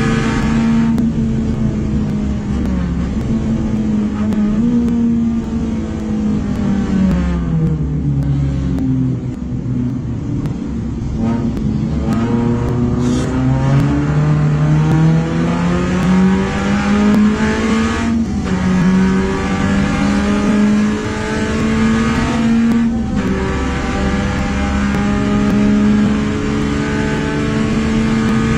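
In the cabin of a race car, a Perodua Alza 1.5-litre 3SZ-VE four-cylinder engine runs hard at high revs. The revs fall in steps as the car brakes and downshifts for a corner, then climb again under full throttle, with two upshifts later on.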